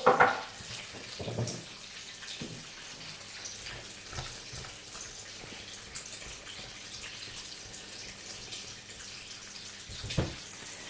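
Potato and apple pieces in salted water in a pot on the stove, a steady bubbling, with a few knocks of a spoon against the pot as it is stirred.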